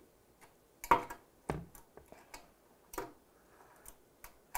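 Light metallic clicks and small knocks, about six at irregular intervals, as the screws holding the metal housing panels of a Rocket Appartamento espresso machine are tightened down by hand.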